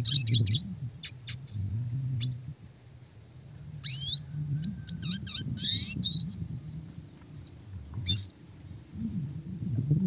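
Red siskin singing: a run of quick chirps, short trills and rising and falling whistled notes, with one sharp, loud note about seven and a half seconds in. A low sound continues underneath.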